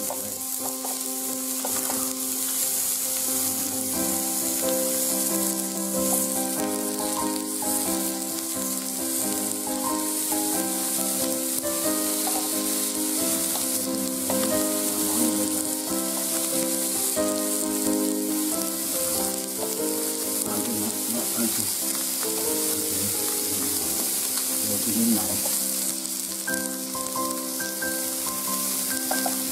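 Thin-sliced beef and shrimp sizzling steadily on a ribbed indoor tabletop grill, with background music playing alongside.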